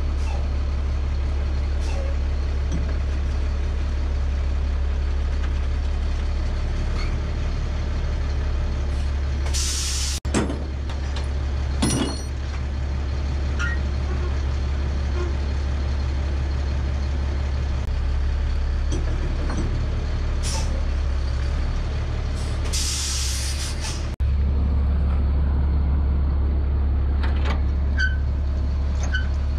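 GMC C8500 dump truck idling steadily, with two loud hisses of compressed air from its air brake lines, about ten seconds in and again about twenty-three seconds in. A few light metal clinks come near the end.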